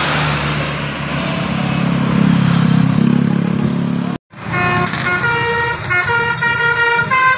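A bus engine runs with a low rumble that swells about two seconds in. After a brief dropout about four seconds in, a Basuri 'telolet' multi-tone bus horn plays its quick tune of changing notes.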